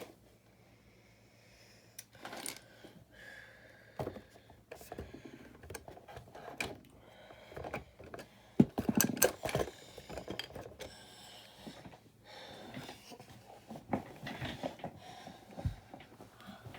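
Small plastic building bricks clicking and rattling against each other as they are handled and rummaged through, in irregular bursts that are busiest about halfway through.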